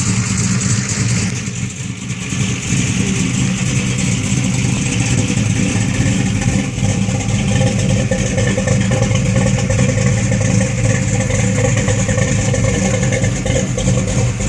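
Small-block V8 in a 1986 Buick Regal idling with a choppy, loping idle, the sound of a big camshaft.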